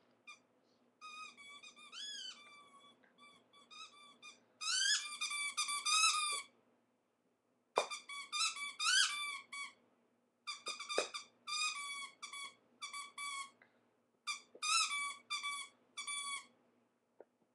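A dog's squeaky toy squeaking again and again as a Bernese mountain dog puppy chews it, in quick runs of short squeaks with brief pauses between. Two sharp knocks come in the middle.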